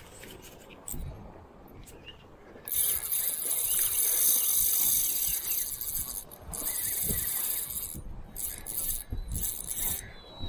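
Shimano Saragosa 8000 HG spinning reel's drag buzzing as a hooked false albacore pulls line off against it. The high buzz runs for about three and a half seconds, breaks briefly, then runs again for over a second, with a few shorter spurts near the end.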